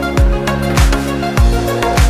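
Music with a steady beat: a deep kick drum that drops in pitch on each stroke, about every 0.6 seconds, under sustained chords.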